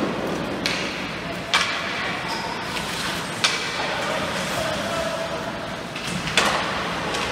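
Game noise in a large indoor hall: a steady murmur of spectators with four sharp knocks from the play, some with a short ring after them.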